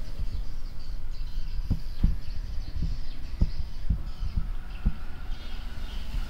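Irregular dull low thumps, about a dozen, over a steady low rumble.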